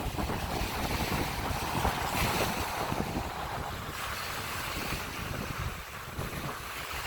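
Ocean surf washing onto the beach, with gusty wind buffeting the microphone.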